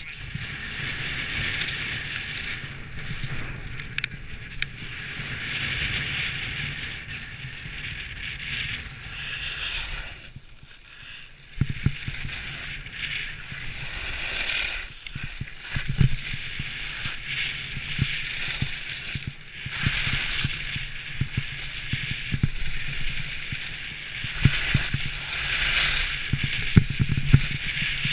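Skis sliding and scraping over snow with wind rushing past a helmet-mounted camera, broken by frequent knocks and jolts, and a brief quieter stretch about ten seconds in.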